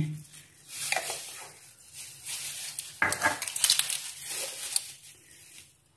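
Crinkling, rustling handling of dried oregano as it is added to a chicken marinade, in several short bursts, the loudest about three seconds in.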